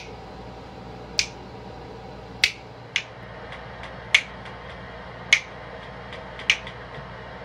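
Finger snapping in a steady rhythm: about seven sharp snaps, roughly one every second and a bit, with one quick extra snap about three seconds in.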